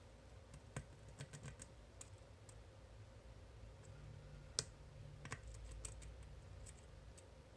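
Faint, scattered metallic clicks of a lock pick and tension wrench working the pins of a cam lock. The clicks come in small clusters, with one sharper click about four and a half seconds in.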